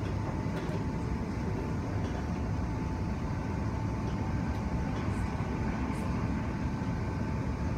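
Interior noise of an electric suburban train running: a steady low rumble with a thin, steady high tone over it.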